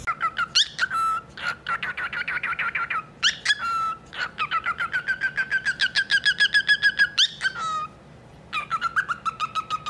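A baby bird peeping rapidly and high, about eight peeps a second, in several runs with short breaks: begging calls.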